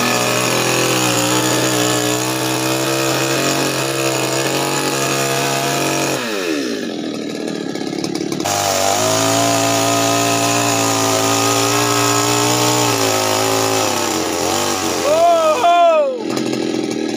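Proquip Quantum mini chainsaw's small two-stroke engine running steadily at high speed. About six seconds in it slows and drops away, then picks back up about two seconds later. Near the end it revs up and down a few times before cutting back.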